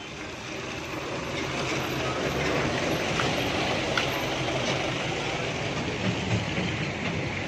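A medium-size bus drives past at close range with its engine running. The noise swells over the first few seconds as it comes alongside, holds, and eases off a little near the end as it moves away.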